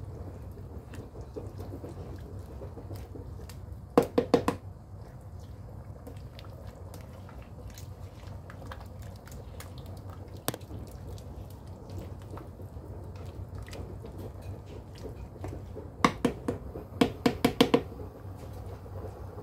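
Laing of taro leaves and coconut milk being stirred in a nonstick pan: soft sloshing of the thick liquid over a steady low hum. Quick runs of sharp knocks of the utensil against the pan come in a burst of a few about four seconds in, a single one midway, and a longer run near the end.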